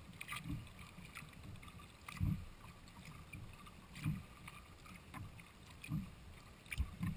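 Sea kayak being paddled on calm water: soft low thumps and swishes of the paddle blades dipping in, about one stroke a second and every other one louder, with light splashing and dripping.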